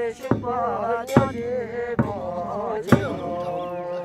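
Ritual chanting sung to a melody over regular strokes of a large handheld frame drum, a beat a little under every second.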